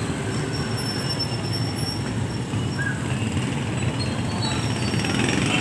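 Steady street traffic noise from passing engines, with a few brief high-pitched squeals over it.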